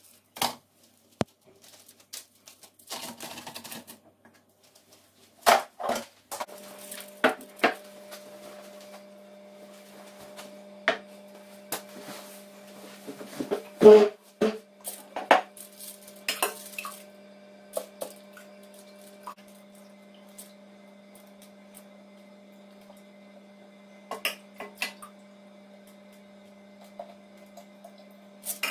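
A stainless steel pot and metal utensils clinking and knocking at irregular intervals as they are handled, with a faint steady hum underneath from a few seconds in.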